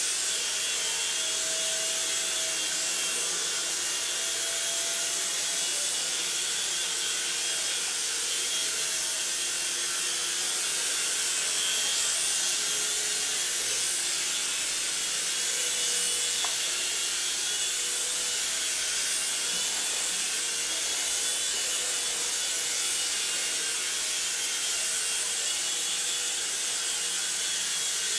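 Small radio-controlled toy helicopter flying, its electric motors and stacked twin rotors making a steady high whirring hiss, with a faint hum underneath that shifts in pitch as it manoeuvres.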